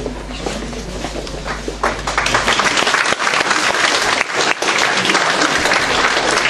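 Audience applauding, the clapping swelling about two seconds in.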